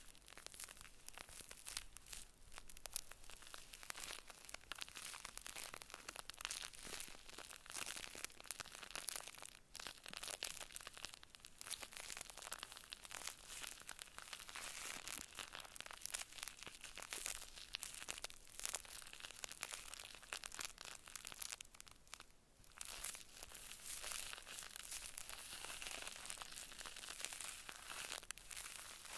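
Close-up ASMR crinkling and crackling: a dense, continuous run of tiny rustles and clicks, with a short lull about three-quarters of the way through.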